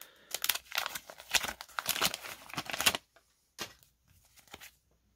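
Paper wrapper of a sealed baseball card pack being torn open by hand: about three seconds of crackling tearing, then a couple of short crinkles as the wrapper is pulled back.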